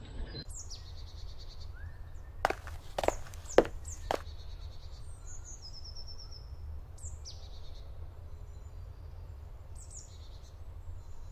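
Woodland birds singing, with high chirps and short descending trills, over a steady low rumble. About two and a half seconds in comes a short cluster of four or five sharp knocks, the loudest sounds.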